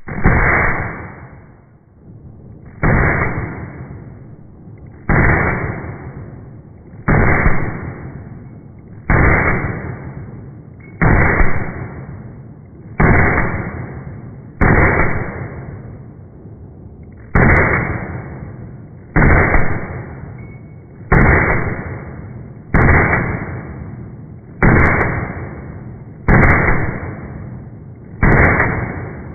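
Glock 34 9mm pistol shots played back in slow motion: fifteen sudden, muffled booms about two seconds apart, each dying away over about a second.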